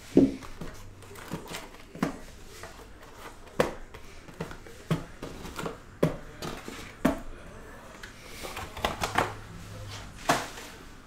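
Cardboard trading-card boxes being handled and set down on a table: a string of light knocks and taps, about a dozen, at irregular intervals, with soft rustling of packaging between them.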